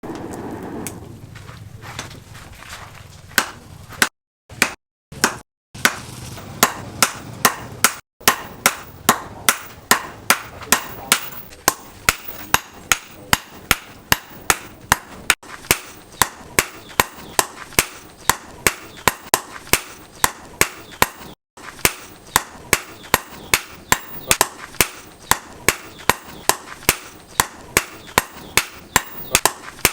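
Hammer blows on leaf-spring steel being forged on an anvil: a few spaced strikes, then a steady run of sharp blows about two a second.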